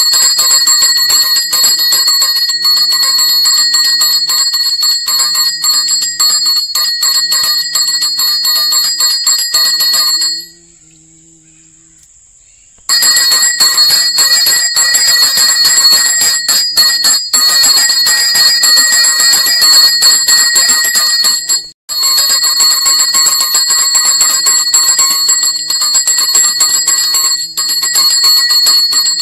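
Temple bell ringing rapidly and continuously during the Bhairava abhishekam, with several steady high ringing tones. The ringing breaks off for about two seconds about a third of the way in, then resumes, with another brief break about three quarters of the way in.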